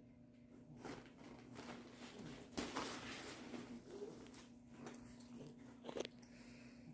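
Faint rustling and crinkling of a nylon cat play tunnel as a cat moves inside it, heaviest in the middle, with a couple of light taps about six seconds in, over a steady low hum.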